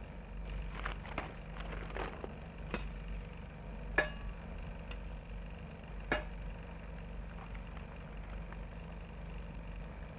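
A steady low hum with scattered sharp clicks and knocks; the sharpest is about four seconds in and another comes about six seconds in.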